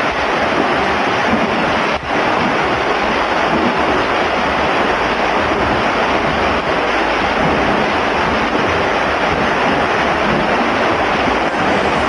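Swimmers splashing in an indoor pool: a steady wash of water noise, with one brief dip about two seconds in.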